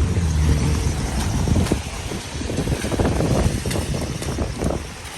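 Street traffic on a rain-soaked road: a vehicle engine hums for the first second or so, then tyres hiss through water on the wet pavement.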